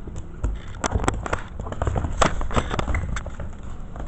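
Handling noise from a camera being knocked about by Maltese-mix puppies: irregular sharp knocks and clicks against the camera over a low rubbing rumble.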